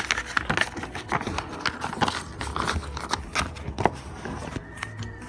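Paper pad being handled: pages rustling and flipping, with irregular knocks and clicks of handling. A faint low hum comes in near the end.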